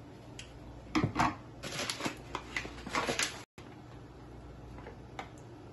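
A glass blender jar and its plastic lid being handled and set on a kitchen counter: several short knocks and clinks, the first with a dull thump, then the sound cuts off sharply about three and a half seconds in, leaving quiet room tone.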